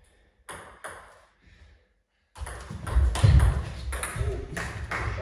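Table tennis ball clicking off bats and table: two taps, a brief silence about two seconds in, then a quick rally of strokes and bounces at about three a second, with low thuds underneath.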